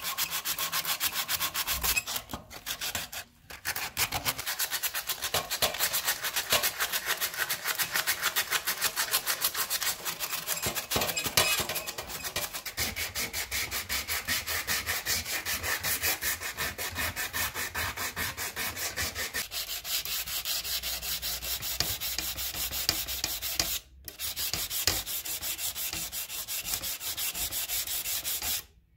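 Aluminium oxide sandpaper rubbed by hand along a rusty metal sword blade in quick back-and-forth strokes, scouring off the rust. The strokes pause briefly twice.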